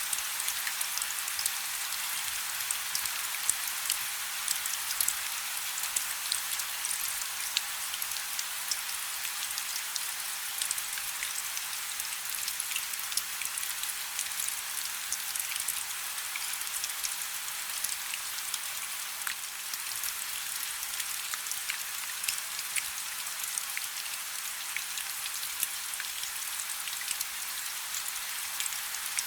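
Steady rain: an even hiss, with many separate drops ticking close by throughout.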